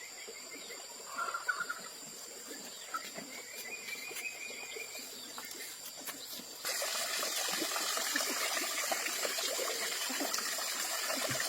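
Faint outdoor ambience with a steady high tone and a few short chirps, then an abrupt cut, about two-thirds in, to louder trickling, running water.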